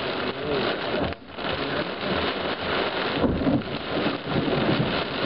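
Heavy storm rain pelting a car's windshield and roof, heard from inside the car as a dense, steady hiss. The noise dips briefly about a second in.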